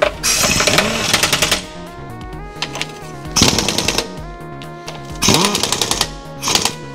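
An impact wrench hammering in three short bursts of rapid rattling, over background music.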